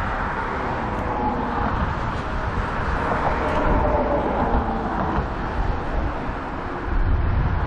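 Wind buffeting the microphone outdoors, a steady rumbling noise that swells and eases, with no distinct event.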